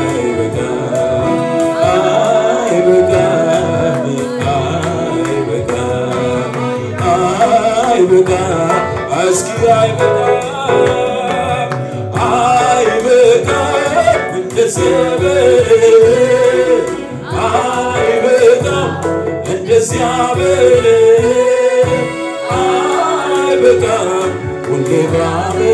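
A man singing a slow Amharic worship song into a microphone, with long held, wavering notes over instrumental accompaniment.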